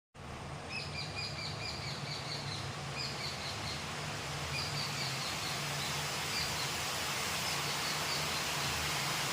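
Steady rain falling, an even hiss that grows slightly louder over time. A bird calls over it in runs of short, quickly repeated chirps, and a low steady hum sits underneath.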